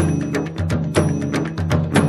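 Drum-led instrumental music: quick, even drum strokes over deep, ringing low tones, with a heavier accented beat about once a second.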